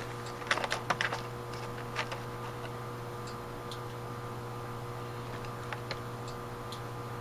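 A few light clicks and taps of small metal parts and a hand tool being handled on a workbench as carburetor check balls are picked out: a quick cluster about half a second to a second in, then a handful of faint scattered ticks. A steady low hum runs underneath.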